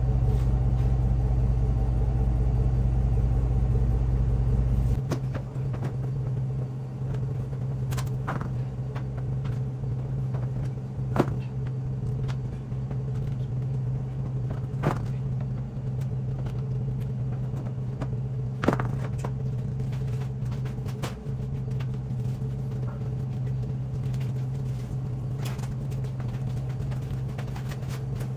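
Steady drone of a vehicle's engine and road noise heard from inside the cabin while driving, with a deep low rumble that drops away about five seconds in. A few sharp clicks stand out.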